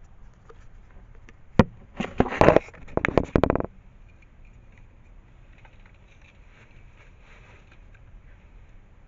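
An airsoft electric rifle firing: one sharp shot about a second and a half in, then several quick bursts of rapid clicks over the next two seconds.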